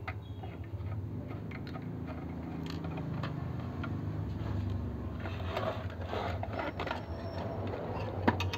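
Faint clicks and scrapes of a screwdriver prying at the sheet-metal case of a car head unit and handling its disc mechanism, over a steady low hum.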